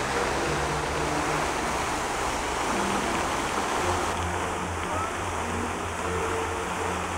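Steady rushing spray of a fountain jet, with soft music underneath that grows stronger about four seconds in.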